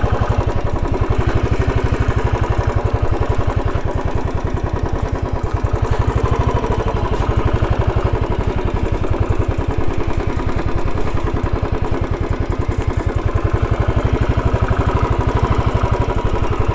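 Royal Enfield Thunderbird motorcycle's single-cylinder engine running steadily with an even beat while the bike is ridden off-road up a rough hill track.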